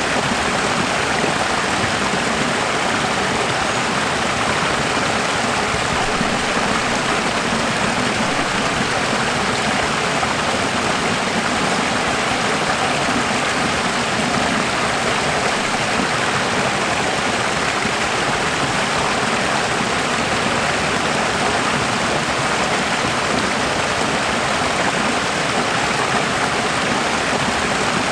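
Steady rushing of running water, like a stream, as an even hiss that neither rises nor falls.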